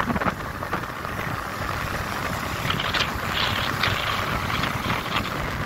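Motorcycle running steadily while being ridden, with rushing wind on the microphone and a few short knocks about halfway through.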